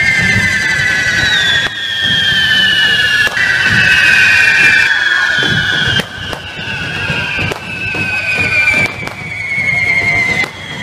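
Hand-held firework fountains spraying sparks, whistling and hissing. Several high whistles overlap and each slowly falls in pitch, over a low rumble, and they break off abruptly several times.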